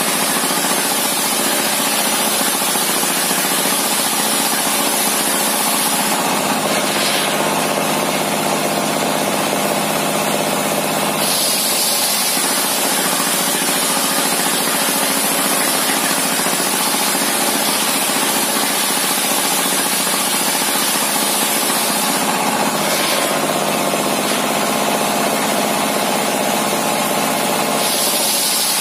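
A homemade circular-saw bench, powered by a single-cylinder dompeng diesel engine, runs steadily while ripping a thick timber beam into planks. A high whine over the engine drops out twice for several seconds and then returns.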